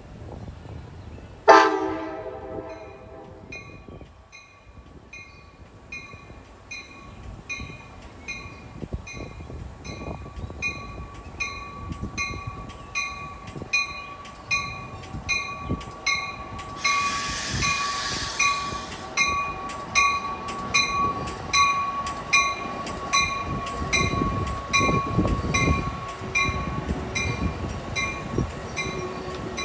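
A train horn sounds one blast of about two and a half seconds, the loudest thing here, then the locomotive's bell rings steadily at about one and a half strikes a second as the train moves through the station. A short burst of air hiss comes about midway, and the rumble of the train grows toward the end.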